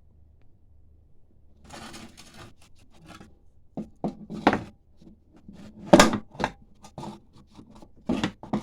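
Irregular clicks and knocks of parts being handled as a lawnmower's clutch cable and spring are clipped into the gearbox. They begin a little under two seconds in, with the sharpest knock about six seconds in.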